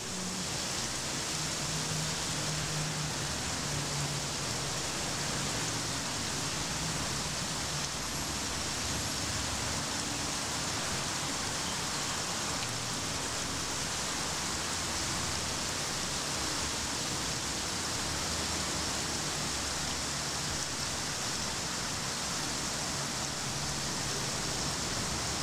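Water running and splashing steadily down a wall of hundreds of small pivoting metal troughs, a constant rain-like hiss.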